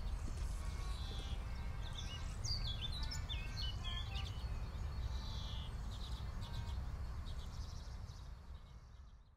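Outdoor ambience of birds chirping over a steady low rumble. The chirps come in short rising and falling notes, busiest a few seconds in, and the whole ambience fades out near the end.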